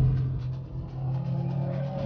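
Background music with a held low note and a few shorter notes above it.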